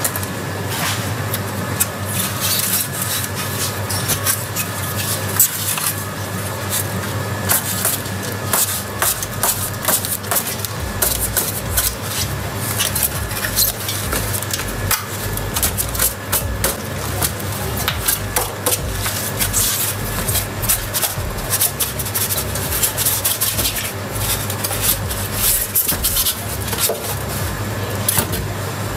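Expanded polystyrene foam insulation being worked loose and pulled off a stainless-steel water heater tank: foam rubbing and squeaking against foam and metal, with many short scrapes and knocks, over a steady low hum.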